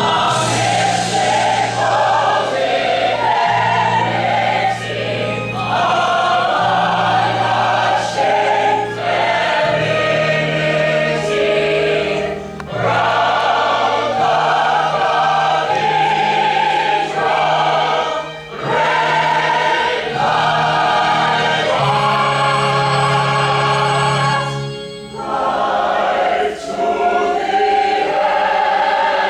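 A choir singing with musical accompaniment, sustained chords changing every second or two, with short breaks between phrases.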